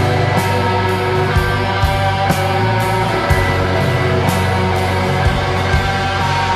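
Live rock band playing an instrumental passage: electric guitar, keyboards, bass and drums, with the cymbals struck about twice a second over a steady bass.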